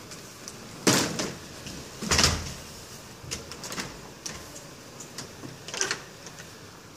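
Tilt-and-slide door sash being pushed and slid by hand in its frame: short rumbling slides and knocks. The two loudest come about one and two seconds in, followed by smaller knocks and another sharp one near the end.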